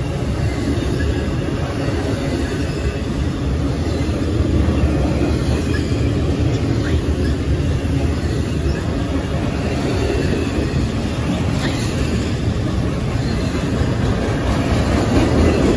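Norfolk Southern intermodal freight train's container-loaded well cars rolling past: a steady rumble of steel wheels on rail, getting a little louder near the end.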